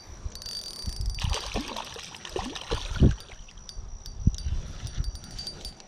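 Water splashing and gurgling as a hooked bass thrashes at the surface while it is reeled in, in uneven bursts with a few low thumps.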